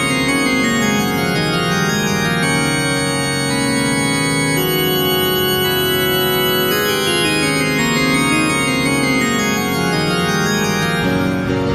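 Background music: sustained organ-like chords under a melody that steps slowly up and down. Near the end it changes to struck keyboard notes.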